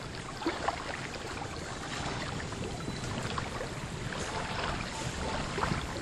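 Small sea waves lapping at the shore: a steady rushing noise with faint scattered splashes.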